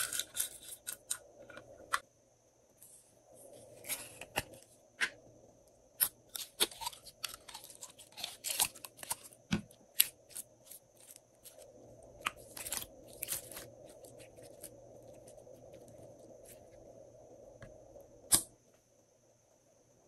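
Glossy slime being squeezed, kneaded and stretched by hand, giving irregular sharp clicks, pops and crackles as air pockets burst. The sounds stop shortly before the end.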